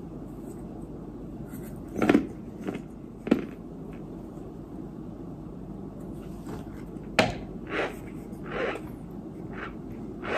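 Short crunches of chalky white dirt chunks bitten from shot glasses, with sharp knocks of a small glass against the tray. They come in an uneven run of about eight, with the sharpest click about seven seconds in.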